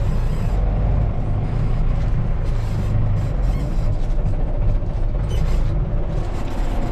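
Tractor engine running steadily under load while towing another tractor, a continuous low drone.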